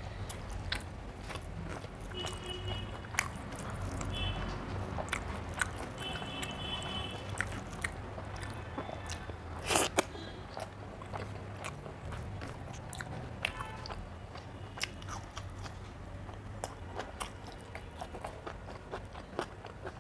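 Close-up eating sounds of a meal of rice with dal, vegetables and curries: chewing, mouth clicks and smacks, with a few brief ringing clinks early on and one sharper click about halfway. A steady low hum runs underneath.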